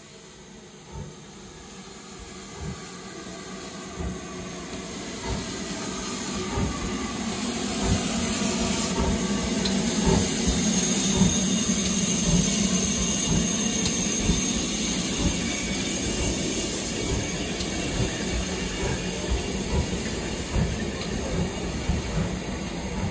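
GWR Hall class 4-6-0 steam locomotive 4930 Hagley Hall pulling away with a loaded train, its exhaust beats coming quicker as it gathers speed. Steam hisses from the open cylinder drain cocks. The sound grows louder over the first ten seconds or so as the engine draws level, then holds steady as the tender and train go by.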